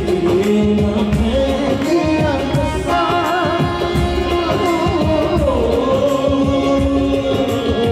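Qawwali: a lead voice singing held and wavering ornamented notes over instrumental accompaniment and frequent percussion strokes.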